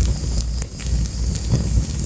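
Fire crackling, with frequent irregular sharp pops and snaps over a low steady rumble.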